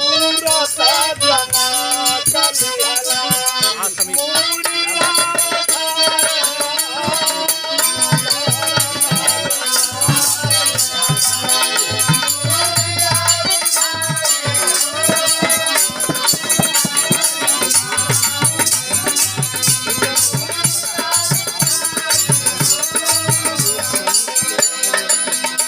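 Bhojpuri Birha folk music: a continuous melodic line over fast, steady jingling percussion.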